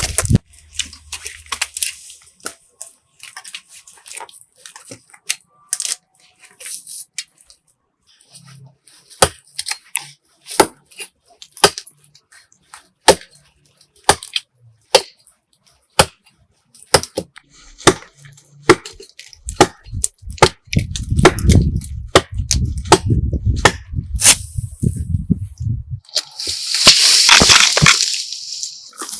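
Wood being chopped or struck with a hand tool: a long run of sharp, irregular knocks and cracks, with a brief loud rushing noise near the end.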